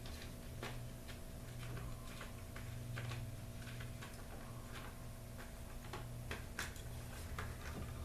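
Irregular small clicks and ticks of a screwdriver and hands working on the garage door opener's plastic cover, taking out a circuit-board screw, over a steady low electrical hum.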